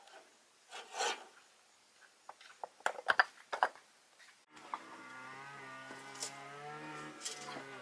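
A few light knocks and scrapes. Then, a little past halfway, a steady motor hum starts abruptly and keeps running at an even pitch.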